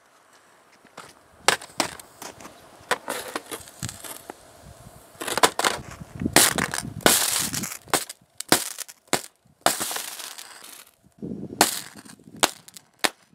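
Heavy DC arcing where a copper rod, fed by four lead-acid batteries in series (about 48 V), shorts across a laptop's circuit board and metal chassis. It makes an irregular string of sharp cracks and pops, coming thickest in runs around the middle and again near the end.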